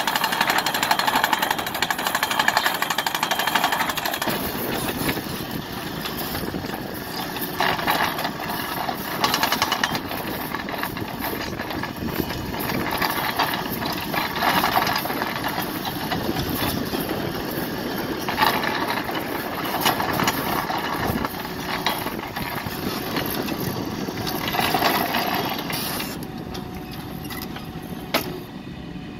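Crawler excavator running, its hydraulic rotary driver turning a steel ground screw pile into stony ground: a steady mechanical din with louder grinding swells every few seconds. The noise eases in the last few seconds.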